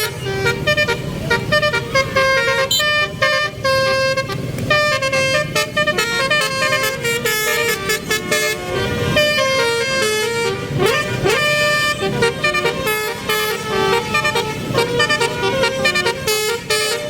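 Po Haryanto bus's basuri-type telolet horn, a musical multi-tone horn, playing melodies as a quick run of stepped notes with hardly a pause, over road and engine noise.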